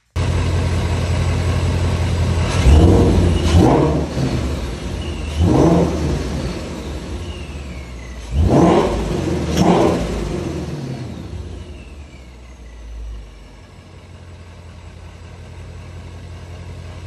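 Supercharged Ford Mustang Shelby GT350's 5.2-litre flat-plane-crank V8 (Vortech centrifugal supercharger) running and blipped about five times, with a high whine falling away after the revs. About twelve seconds in it settles to a quieter idle.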